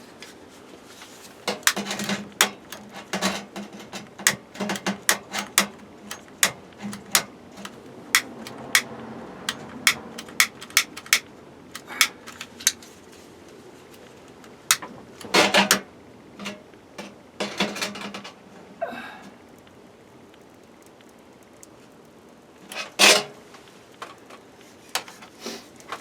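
Irregular sharp clicks and knocks of objects being handled, several a second through the first half, thinning out later, with one louder knock about 23 seconds in.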